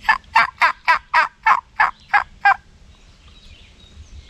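A run of nine loud turkey yelps over about two and a half seconds, about three a second, slowing slightly toward the end.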